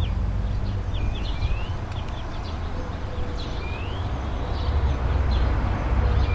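Town ambience: a steady low rumble under a wash of background noise, with small birds chirping again and again in short, rising calls.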